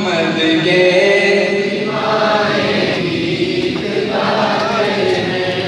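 Naat sung unaccompanied by a male voice through a microphone, in long, drawn-out chanted lines.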